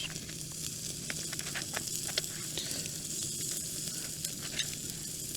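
Sirloin steak sizzling on a Firebox gas grill, a steady sizzle with scattered small pops and crackles of fat.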